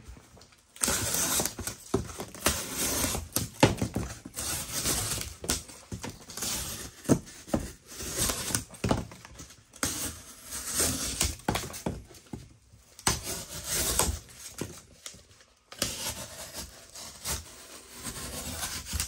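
Olight Oknife Beagle folding knife slicing through double-wall corrugated cardboard in repeated strokes: a rough scraping, tearing sound broken by sharp crackles, with two short pauses in the latter half.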